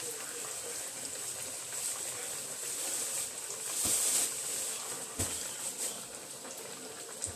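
Pork chops frying in hot oil in a pan, a steady crackling sizzle. A single knock about five seconds in.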